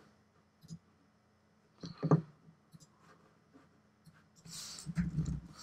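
Quiet room tone with a few faint clicks from working a computer. A short hum-like vocal sound comes about two seconds in, and a soft breath near the end.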